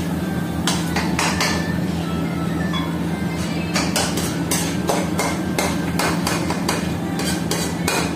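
Metal ladle striking and scraping a steel wok while food is stir-fried, a string of sharp irregular clanks that come faster, about three a second, from about halfway, over a steady low hum.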